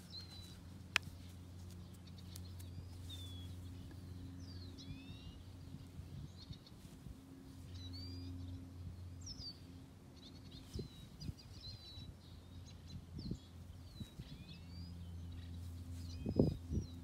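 Small birds chirping in short, quick rising and falling calls, over a low steady hum. A few sharp clicks and taps come from gloved hands handling a plastic-and-rubber phone case, with a short cluster of knocks near the end.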